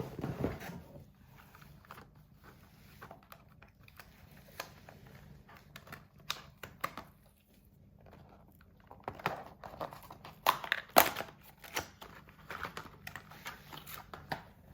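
Cats licking and lapping at a Churu lickable treat, with crinkles from its squeeze packet: scattered small wet clicks and rustles, busier in the second half.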